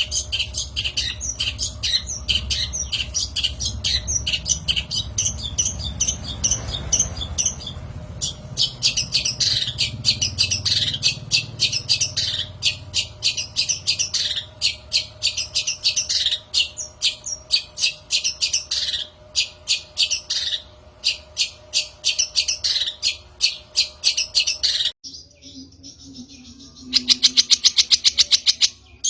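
Long-tailed shrike (cendet) calling in rapid runs of short, harsh, repeated notes, as recorded for a lure track. About 25 s in, the recording cuts to another bird sound that ends in a very fast trill.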